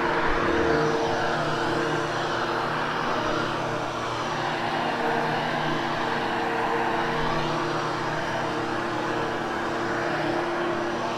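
Hoover Hushtone upright vacuum cleaner running steadily over carpet, a constant motor hum over a rush of air, swelling slightly as it is pushed back and forth.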